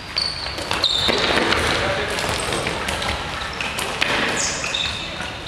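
Sneakers squeaking on a hardwood sports-hall floor, with sharp thuds of dodgeballs hitting and bouncing and indistinct shouts from players, echoing in a large hall. The sound is loudest and busiest in the middle of the stretch.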